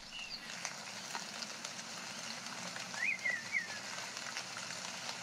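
Jungle ambience: a steady hiss of falling water, with a bird calling a short run of notes about three seconds in.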